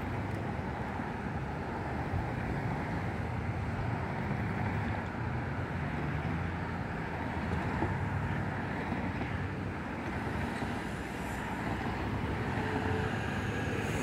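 Road traffic: cars driving past on a street, a steady wash of engine and tyre noise.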